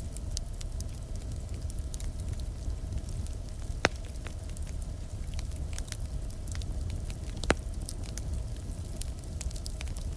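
Campfire burning: a steady low rumble with frequent small crackles, and two louder sharp pops, about four seconds in and again at about seven and a half seconds.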